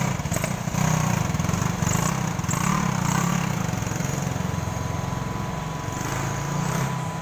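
Yamaha 450 sport ATV's single-cylinder four-stroke engine pulling away. It revs up briefly, then runs steadily and slowly fades as the quad rides off, running somewhat okay now that its dirt-clogged carburetor has been cleaned.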